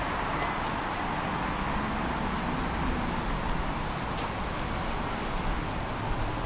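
Tram running along its track with a steady rolling rumble, a single sharp click about four seconds in, then a faint thin high whine lasting about two seconds.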